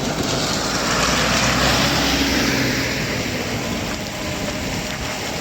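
Heavy rain pouring down in a thunderstorm, a steady loud hiss, with a low rumble that swells and fades in the first three seconds.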